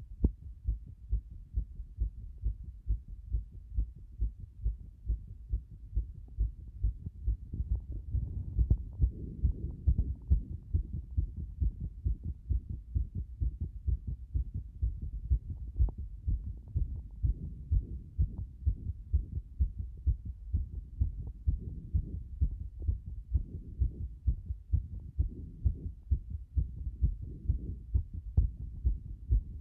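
A fast heartbeat: a quick, even run of low thumps that keeps the same pace throughout.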